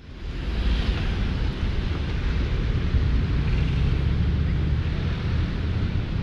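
Busy city street ambience: a steady deep rumble of traffic and general street noise, fading in at the start.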